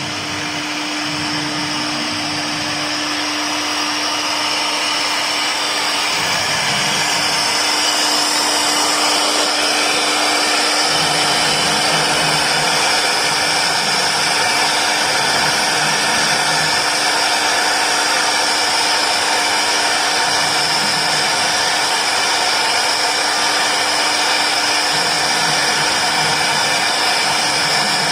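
Four-axis CNC router running, its spindle motor giving a steady high whine that builds over the first several seconds and then holds, with a low uneven rumble coming and going underneath.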